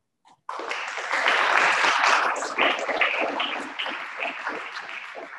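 A group of people applauding, starting about half a second in and dying away toward the end.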